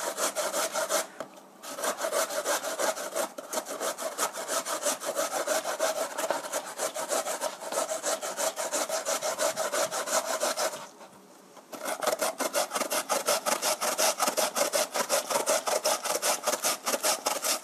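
A raw carrot being grated on a handheld kitchen grater: quick, rhythmic rasping strokes that pause briefly twice, about a second in and about eleven seconds in.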